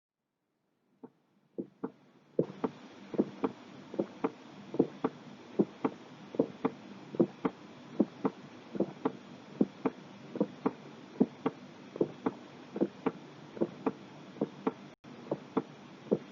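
Human heartbeat heard through a stethoscope: paired lub-dub thuds (the first and second heart sounds) at about 75 beats a minute over a faint hiss, fading in over the first couple of seconds with a brief dropout near the end.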